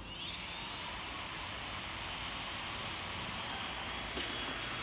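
Robbe Blue Arrow XL radio-controlled model helicopter spinning its rotor on the ground: a high motor whine that rises in pitch at the start, then holds steady over the rush of the rotor blades.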